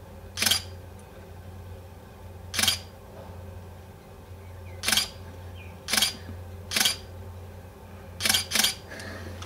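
Camera shutter clicking seven times at irregular intervals, the last two in quick succession near the end, over a steady low hum.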